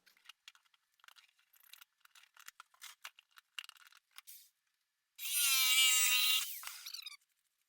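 Scattered clicks and rustles of handling, then an electric jigsaw runs for about a second and a half with a wavering whine, cutting 3/8 plywood filler pieces, and winds down.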